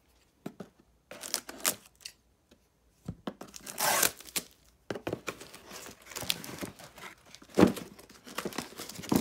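Cardboard box and molded-pulp packaging insert being handled and pulled apart. From about a second in there is an irregular run of rips and crinkles, with a sharp knock about seven and a half seconds in.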